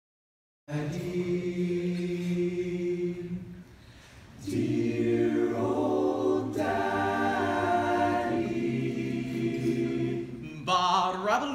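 Male a cappella group singing long held chords in close harmony, with no words. It comes in suddenly under a second in, fades for a moment about three and a half seconds in, then takes up a new chord. Near the end a louder solo voice with a wavering pitch rises over the group.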